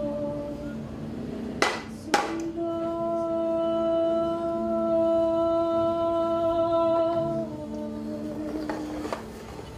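Several voices hum long, steady held notes, one note swelling and held for about five seconds. Under two seconds in come two sharp knocks half a second apart, bamboo poles striking the stage floor.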